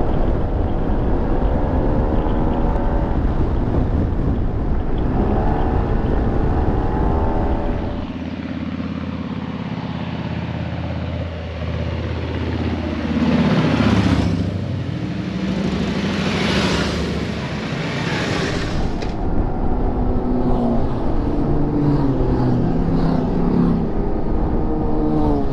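Motorcycle ride on a Yamaha TMAX scooter: the parallel-twin engine rises and falls in pitch with throttle changes, over wind buffeting on the microphone. The wind drops away about eight seconds in. Around the middle, engine tones glide down and back up under a rushing hiss.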